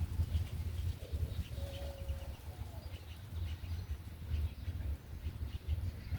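Faint birds chirping over a low, uneven rumble on the microphone, with one short clear call about two seconds in.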